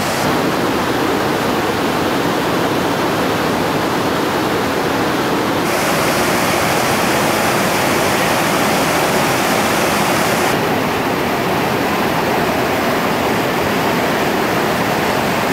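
Whitewater rapids rushing steadily as river water pours over a rocky drop. The hiss turns brighter for a few seconds in the middle.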